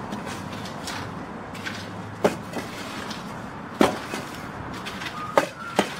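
A few sharp knocks or impacts, irregularly spaced one to two seconds apart, the loudest about two, four and five and a half seconds in, over steady outdoor background noise.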